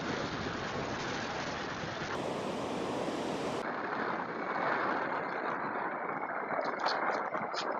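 Ocean surf washing onto a beach, a steady rushing noise with wind on the microphone.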